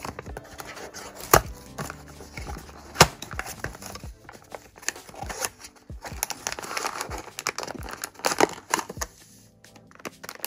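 A cardboard blind box being opened by hand: a paper seal tearing off, the box clicking and tapping, and a clear plastic sleeve crinkling as it is pulled off. Two sharp snaps stand out, about a second and a half and three seconds in.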